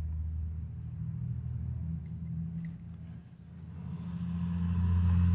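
Low steady rumble that dips and then swells to its loudest near the end, with a few faint light clicks of small steel parts being handled about two to three seconds in.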